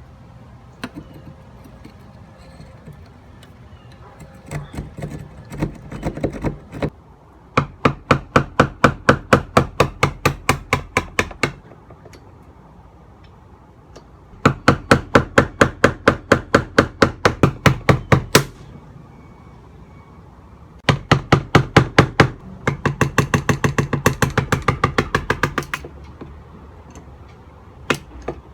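A drill boring into the wall to widen the doorbell opening, in five runs of rapid, evenly spaced knocking, about five knocks a second, with short pauses between the runs.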